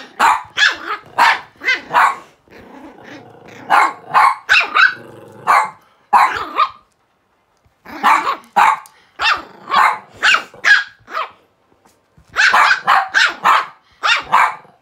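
A puppy yapping in quick runs of short, sharp barks, with a low growl about three seconds in.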